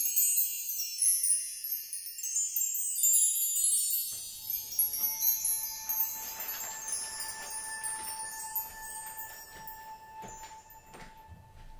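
Dense, high tinkling wind chimes that thin out and fade away over about six seconds. After that there is only a faint steady tone and a few light ticks.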